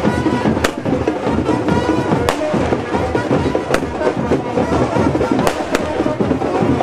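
Aerial fireworks bursting overhead, about five sharp bangs spaced irregularly, over loud music.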